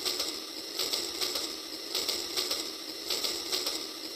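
Battery-powered Rail King toy train running along plastic track: a steady mechanical whirr with clicking in an even rhythm from its wheels and gearing.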